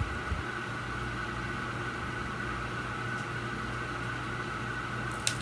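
Steady room hum and hiss, with no other sound until one short click near the end.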